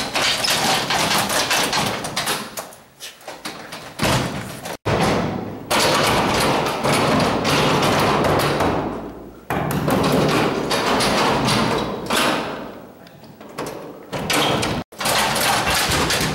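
Locked glass doors with push bars being pushed, shaken and banged on: repeated thudding and rattling in long loud stretches, broken off abruptly twice.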